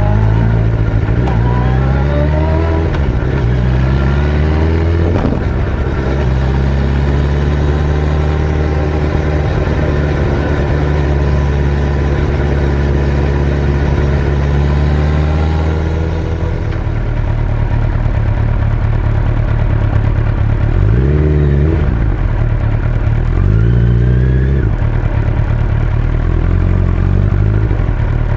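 Suzuki Hayabusa GSX-1300R inline-four motorcycle engine under way. Its pitch climbs several times in the first few seconds as it pulls through the gears, then holds steady at cruising speed, with two brief rises and falls in engine speed in the last third.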